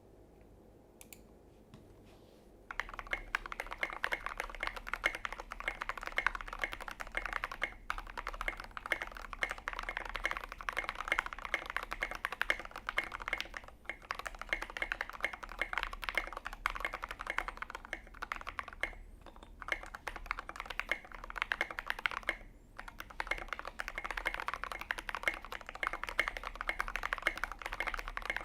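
Fast, continuous typing on a KBDFANS Tofu84 custom mechanical keyboard: lubed Gateron Milky Yellow linear switches on an aluminium plate in an acrylic case with foam inside, under SA keycaps. The typing starts about two and a half seconds in and has a few short pauses.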